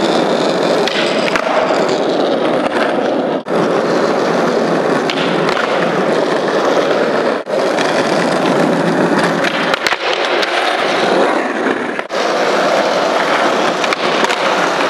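Skateboard wheels rolling on smooth concrete, a steady rumble that drops out briefly three times.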